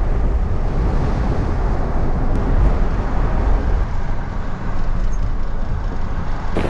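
Strong gusty wind buffeting the microphone, a steady low rumble whose loudness rises and falls.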